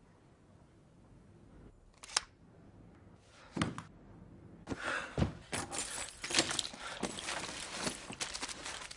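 Clicks and knocks in a small room: one sharp click about two seconds in and a heavier knock a second and a half later, then from about five seconds a busy run of rustling and clicking.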